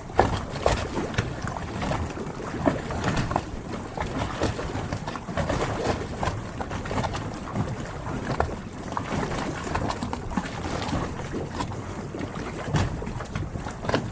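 Harbour water lapping and splashing against the hulls of moored yachts, an irregular slosh with many small slaps.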